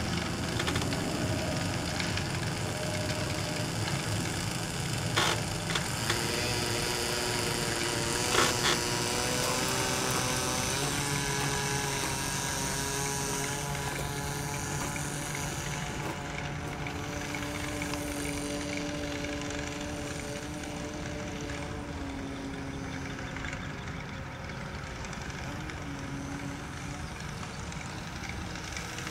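Nitro glow engine of a radio-controlled model plane running at low throttle while taxiing, its pitch stepping up and down a few times. Two sharp knocks come about five and eight seconds in.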